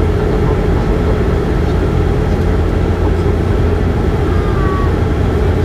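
Bombardier Q400's Pratt & Whitney PW150A turboprop and six-bladed propeller droning steadily in flight, heard from inside the cabin beside the engine: a loud, even, deep hum.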